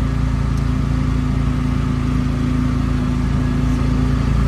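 The small motorcycle engine of a motor tricycle running at a steady pace, heard from the sidecar with road noise.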